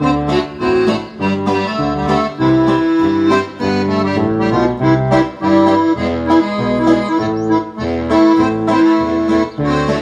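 Piano accordion playing a tune: held melody notes over a regular pulse of bass notes and chords.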